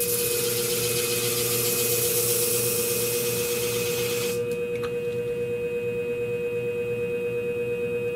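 Scimech flat-hone shear sharpening machine running with a steady hum while a texturizing shear blade is honed against its spinning flat disc: an even grinding hiss for about four seconds that stops suddenly as the blade is lifted off, followed by a light click, the motor humming on.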